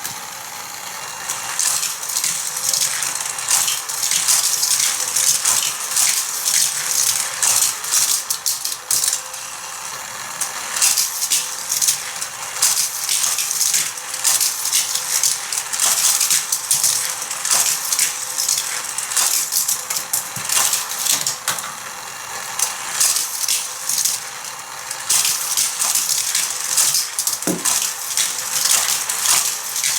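Hot Wheels die-cast cars running around a plastic Tech Trax stunt track, pushed by its motorized power booster: a continuous dense clattering rattle of small clicks that swells and eases.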